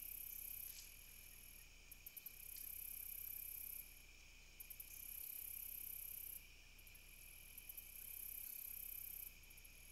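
Faint night insect calls. A few quick ticks lead into a high buzzing trill lasting about a second and a half, and this repeats about every three seconds. Under it runs a steady high chorus of other insects.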